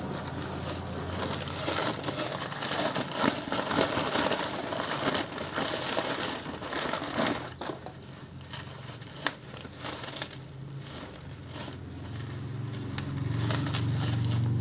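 Plastic packing wrap and newspaper crinkling and crackling as a package is unwrapped by hand. Busy, continuous rustling through the first half, then sparser separate crackles and clicks.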